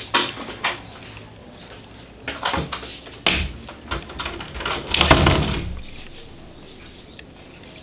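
A door being handled: a sharp click about three seconds in, then louder clicks and a heavy knock about five seconds in, like a latch and the door moving. Short rising bird chirps recur in the background.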